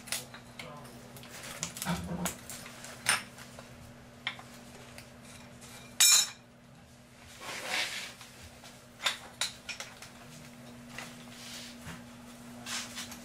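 Metal hand tools, pipe wrenches among them, clinking and knocking against a metal water pipe fitting and the tiled floor in scattered strokes, with one sharp clank about six seconds in and a short scrape soon after.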